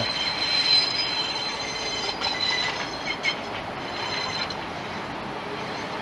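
Railway wheel squeal on a curve: a high-pitched squeal at about 4,000 hertz with fainter higher tones, over steady wheel-rail rolling noise. The squeal weakens after about three seconds.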